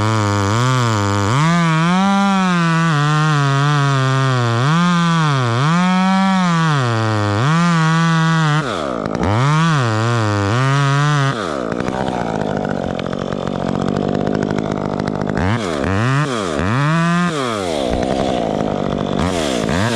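Two-stroke chainsaw running at high revs, its engine speed swinging up and down over and over. About halfway through it drops back toward idle, with a few short revs near the end.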